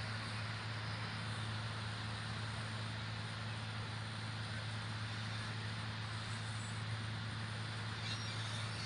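Steady low hum of vehicle engines idling at the roadside, under an even wash of outdoor noise.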